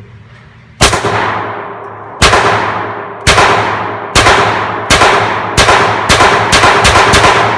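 Sig Sauer Mosquito .22 LR pistol firing about ten shots, each with a short echoing tail. The first few come more than a second apart and the last ones follow faster, about two a second.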